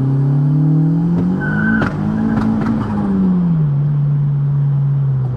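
Turbocharged 1.8-litre 20-valve four-cylinder of a Mk2 Golf revving hard in a full-throttle pull and hitting the rev limiter, with several sharp bangs around two to three seconds in. The revs then fall away and settle to a steady lower note. The banging on the limiter worries the owner, who says it is not good for the turbo.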